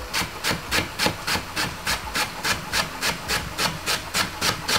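Chef's knife slicing through a leek onto a wooden chopping board, in quick, even strokes of about four a second.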